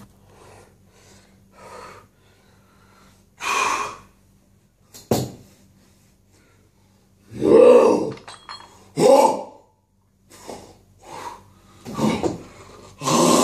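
A man's loud, breathy gasps and groaning cries in separate bursts a second or two apart, coming louder and closer together, with a longer cry starting near the end.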